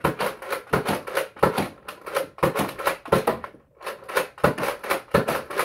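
Nerf Retaliator spring blaster, stripped down without stock, being primed and fired over and over: a quick string of plastic clacks and shots, several a second.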